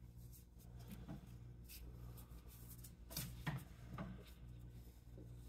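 Faint rubbing and light scraping of a gloved hand working grease onto a snowblower's drive shaft, over a steady low hum.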